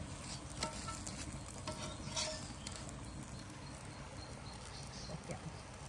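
Faint crackling with scattered small clicks over a steady low hiss, from pancakes frying on a muurinpohja griddle pan over a wood fire.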